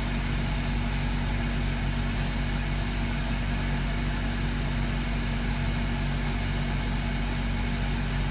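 Steady low mechanical hum over an even background noise, holding constant without change.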